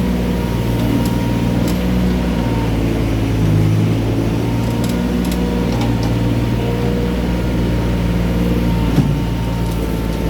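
Mini excavator's diesel engine running steadily, its note shifting up and down as the hydraulics take load, with a few faint clinks and one sharp knock about nine seconds in.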